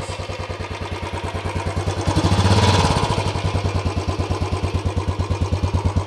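Royal Enfield Classic 350 BS6's single-cylinder engine idling through its stock exhaust, a steady run of even pulses. It gets louder for a moment about two seconds in, then settles back.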